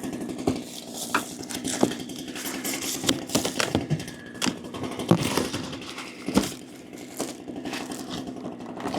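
A Holzfforma G395XP two-stroke chainsaw, a Husqvarna 395XP clone, idling steadily in the background. Over it come irregular sharp clicks and knocks from parts and packaging being handled.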